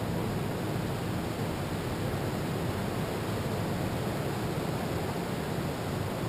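Steady rush of ocean surf breaking on a beach, mixed with wind on the microphone, heaviest in the low end and even in loudness throughout.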